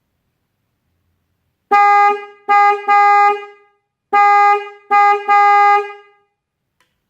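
Electric car horn sounded in two sets of three honks, about two and a half seconds apart. Each honk is a loud, steady single note that fades out quickly when released.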